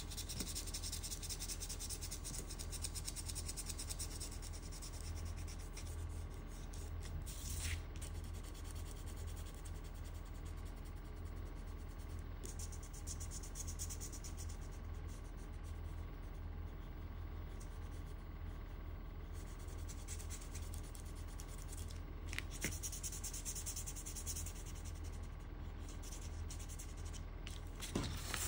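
Side of a black colored pencil rubbed back and forth over drawing paper in continuous rapid shading strokes, laying in a soft fabric-like texture.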